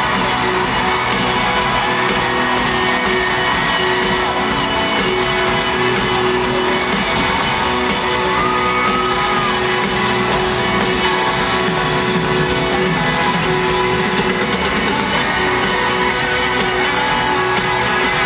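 A live country band playing loudly with guitars to the fore, heard from among a stadium crowd.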